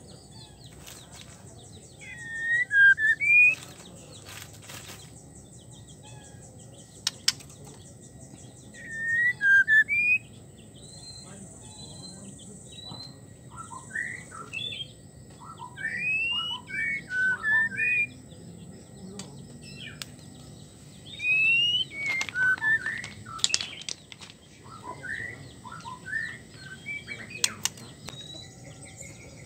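White-rumped shama giving clusters of short whistled 'wik' call notes that swoop up and down, with a few sharp clicks between the clusters. The uploader offers these as the call of a female in breeding condition calling to males.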